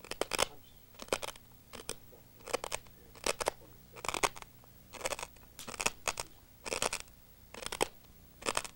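Glass from a broken light bulb being chewed: regular sharp crunches, a little under one a second.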